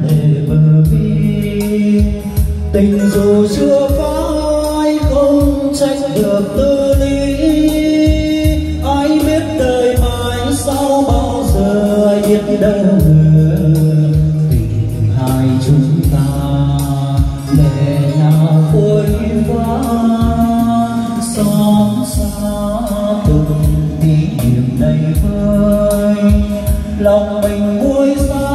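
A song with singing, played loud through a PA system driven by a Dynacord CMS 1600 mixer and power amplifier.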